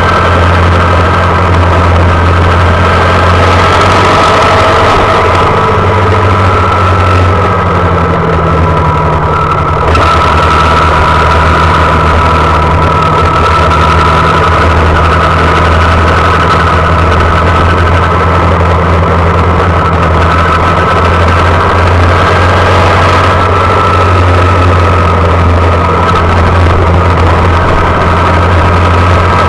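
Honda Monkey's small single-cylinder four-stroke engine running steadily under way, picked up loud and close by a handlebar-mounted action camera, its pitch drifting slightly with the throttle.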